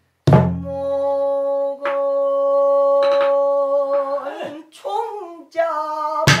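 Pansori singing by a woman: a single long, steady note held for about four seconds, then sliding down and up in pitch into another held note. A barrel-drum stroke sounds as the note begins, and a sharp drum stroke comes near the end.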